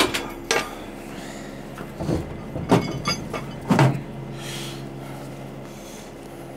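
Sharp metal clanks and knocks, about half a dozen in the first four seconds, from the steel wheel clamp of a wrecker's wheel-lift as it is unfastened with a bar. A steady engine hum runs underneath.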